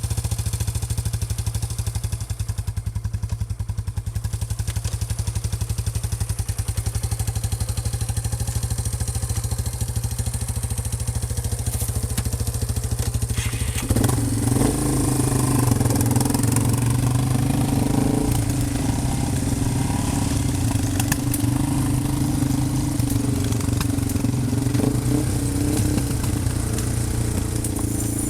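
Small off-road vehicle engine running steadily just after starting, then about halfway through its note steps up and it runs louder and harder for the rest of the time.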